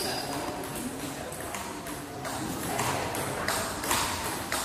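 A few separate sharp clicks of a table tennis ball, over the low murmur of voices in a hall.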